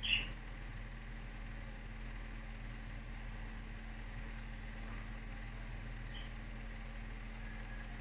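Budgerigar giving one short, high chirp right at the start and a fainter one about six seconds in, over a steady low hum.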